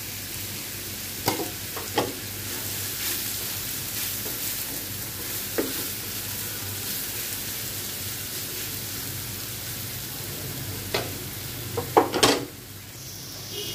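Grated taro frying in hot oil with onions: a steady sizzle while a plastic slotted spatula stirs it, scraping and knocking against the pan now and then. The loudest scrape comes near the end, and the sizzle drops off just after it.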